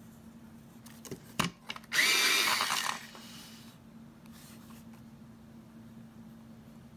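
Small electric pencil sharpener running for about a second, with a short motor whine, after a few light clicks, sharpening a colored pencil. Afterwards the pencil scratches faintly as it draws dots on shrink plastic.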